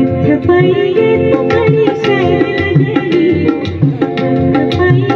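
Live folk song in Dogri: a woman singing over hand-drum strokes and strummed acoustic guitar.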